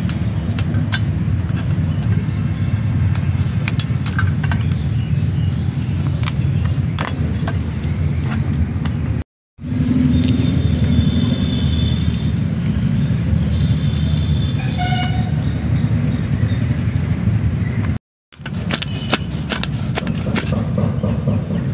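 A steady low rumble with scattered sharp clicks and cracks from crab shells being cut and cleaned by hand.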